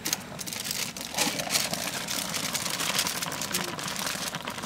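Food sizzling in a hot pan over the campfire: a steady hiss full of small crackles.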